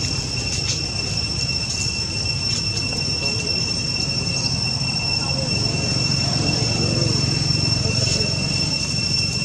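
Steady high-pitched insect drone, one unbroken whine over a low background rumble.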